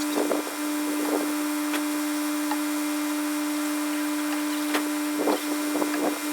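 A machine running steadily with a constant hum, with a few short clunks and rattles over it.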